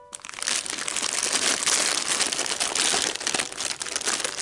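Foil and plastic blind-bag toy packets crinkling and rustling continuously as a hand rummages through a heap of them.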